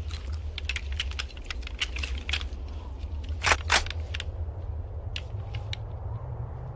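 Steady low hum with scattered sharp clicks and taps, two of them louder about three and a half seconds in.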